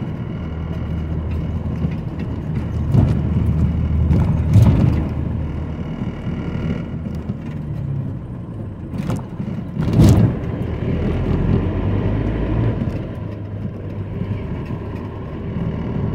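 Car engine running and tyres rumbling steadily over a paver-brick road, heard from inside the cabin. Two sharp thumps about nine and ten seconds in, the loudest sounds, come as the wheels cross a rubber speed bump; lighter knocks come earlier.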